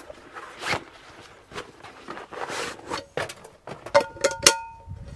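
Cooking gear and ingredients being handled and set out: rustling and small knocks, then a few sharp clinks about four seconds in, each ringing briefly.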